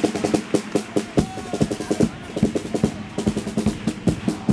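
Carnival chirigota percussion, snare drum and bass drum, playing a fast, driving rhythm that starts suddenly, with a steady low instrumental tone underneath.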